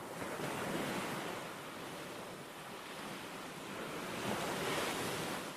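Surf washing on a shore, an even rush with some wind that swells and eases, louder again about four seconds in.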